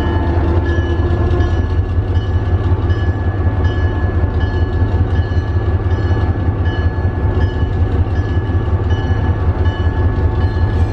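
Inside the cab of a vintage electric railway car on the move: a steady low rumble with a thin, constant whine above it.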